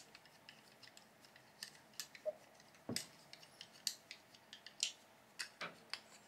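Faint, irregular small clicks and taps of a 3D-printed plastic extruder assembly and a hex key being handled while a small screw is fitted, with one sharper knock about three seconds in.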